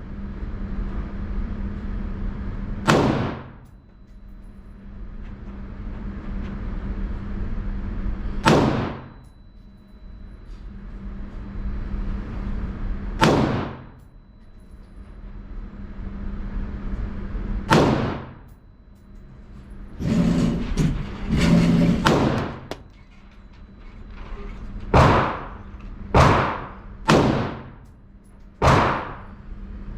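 Colt AR-15-pattern rifle firing single shots: four shots about five seconds apart, then after a short noisy scuffle, five quicker shots about a second apart near the end. A low rumbling noise fills the gaps between shots.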